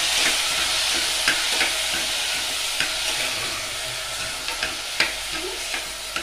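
Chopped onions sizzling in hot oil in a pressure-cooker pot, stirred with a metal spoon that clicks and scrapes against the pot now and then. The sizzle eases slightly toward the end.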